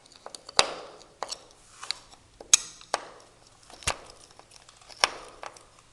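Irregular sharp clicks and knocks, about seven of them, from a screwdriver and hands working at the metal top hinge of a uPVC balcony door while its screws are being undone.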